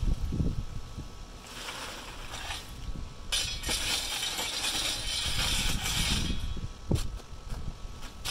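A steel shovel scraping into a pile of dirt and lava rock, then a shovelful dumped onto a hardware-cloth sifting screen, with rocks rattling and dirt pouring through for about three seconds. A few sharp knocks come near the end.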